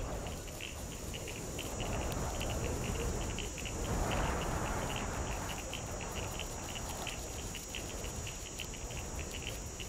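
Night insects chirping in short high pulses, a few a second, over a steady rushing of wind that swells around four seconds in.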